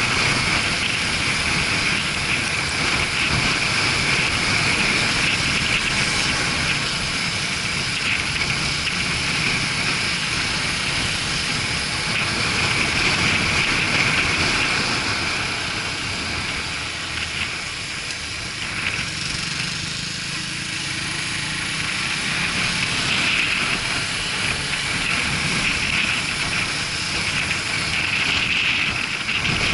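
Steady wind rush over an action camera's microphone while riding a Suzuki GW250 motorcycle, with its engine running underneath. The wind eases for a few seconds a little past halfway.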